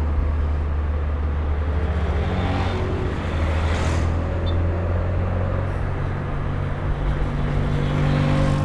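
Turbocharged Mini Cooper engine droning steadily while driving. A rush of road and traffic noise swells to a peak about four seconds in and rises again near the end.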